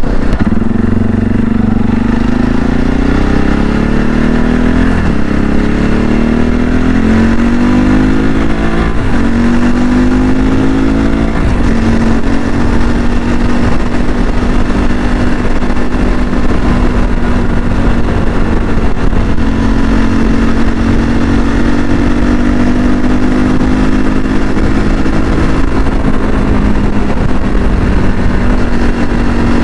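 CSC RX4's 250 cc single-cylinder engine pulling hard through the gears. Its pitch climbs and drops back at each of three upshifts in the first dozen seconds, then holds steady at highway cruising speed under a constant rush of wind.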